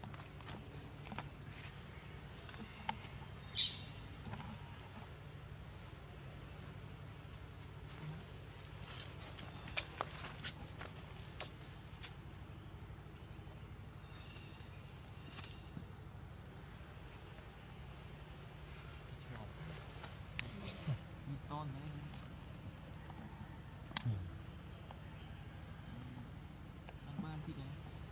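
Steady high-pitched insect chorus, two unbroken tones running throughout, with scattered soft clicks and rustles. Two short, louder sounds stand out, about three and a half seconds in and near the end.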